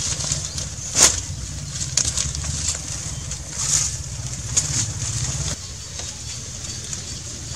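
Rustling and a few sharp clicks from an air rifle being handled, over a steady low hum that drops away about five and a half seconds in.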